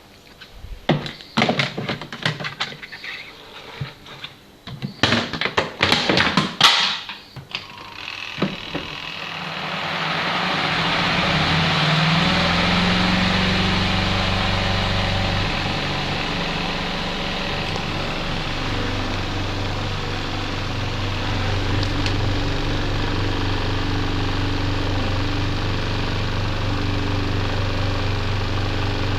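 Knocks and clatter, then about eight seconds in a twin-tub washing machine's spin dryer starts, its motor and drum running up to speed with a briefly rising pitch before settling into a steady whirring hum.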